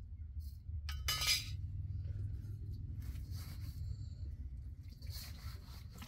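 Hands mixing wet dough in an aluminium bowl, with one sharp metal clink about a second in from the small metal water cup knocking against the bowl, followed by softer scraping and squishing from the kneading.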